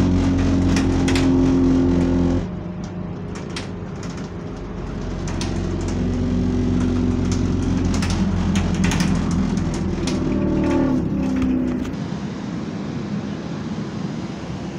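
Engine and radiator cooling fan of a first-batch Scania double-decker bus, heard from inside the cabin as a loud steady drone. The drone drops suddenly about two seconds in, builds again a few seconds later and falls back near the end, with interior rattles clicking throughout.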